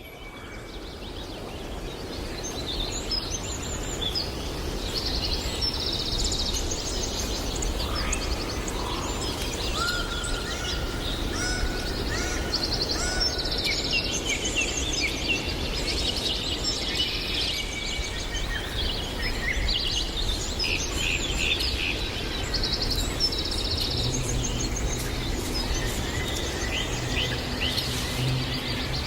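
Several songbirds singing and chirping, with quick trills and short whistled notes, over a steady background of forest noise. The sound fades in over the first couple of seconds, and a low hum joins near the end.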